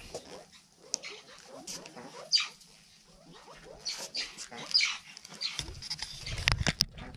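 Mongooses giving short, high-pitched chirps that fall in pitch, one every second or two, over soft scratchy rustling. A few sharp knocks come near the end.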